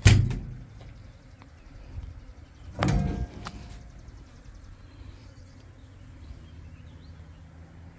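A loud thump right at the start and a second knock about three seconds in, with a brief ring, as a large paddlefish is moved about on a cleaning-station table. A low steady hum runs underneath.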